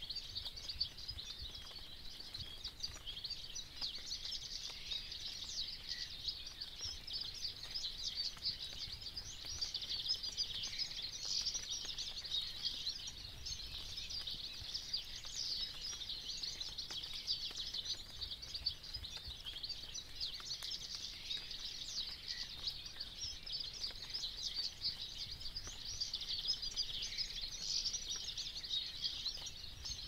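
Dense chorus of many small songbirds chirping and twittering without a break, over a faint low rumble.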